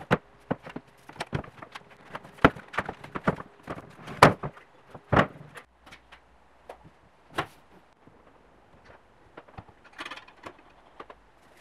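A wooden mallet knocking grey plastic sewer-pipe fittings together: a series of irregular knocks over the first five seconds or so, the loudest a little after four seconds. Later come a few light clunks and a brief scraping about ten seconds in, as plastic pipe elbows are pushed into place.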